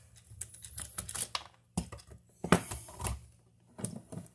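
Irregular clicks and scrapes of a screwdriver and stiff old wires against an electrical outlet's metal terminal screws and yoke as the outlet is unhooked from its wires, with one sharper tick about two and a half seconds in.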